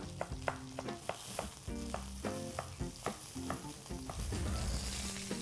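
Japanese-style vegetable cleaver chopping celery on a wooden cutting board, quick chops about three a second, over a steady sizzle of chicken frying in a skillet.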